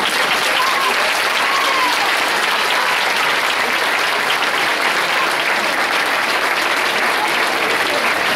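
Crowd applauding, a steady sustained clapping that keeps up without a break.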